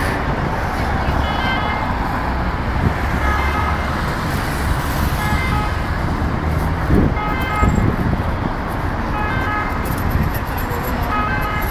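Heavy road traffic on a busy roundabout: a steady rumble of car engines and tyres, with short horn-like toots now and then and one engine revving up about seven seconds in.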